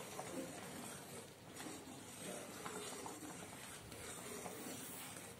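Metal spoon stirring thick, bubbling bottle-gourd kheer in a pan: faint scraping and light clicks against the pan.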